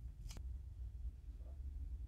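Quiet room tone with a steady low hum, broken by one brief sharp click about a third of a second in.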